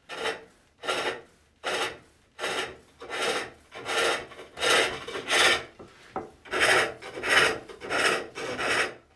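Hook tool cutting into a wooden box blank spinning on a foot-powered pole lathe: a scraping cut on each downstroke of the treadle, about three every two seconds, with a short pause as the work spins back between cuts. The cuts are hollowing out the inside of the box.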